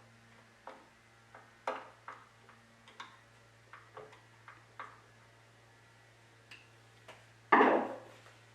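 Scattered light clicks and taps of small hardware and hand tools being handled, irregularly spaced, with one much louder knock about seven and a half seconds in.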